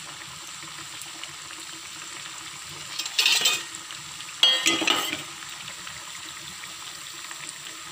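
Potato tikkis deep-frying in hot oil in a metal kadhai, a steady sizzle. About three and about four and a half seconds in come two louder, brief bursts of scraping and sizzling as a metal slotted spoon is worked in the pan.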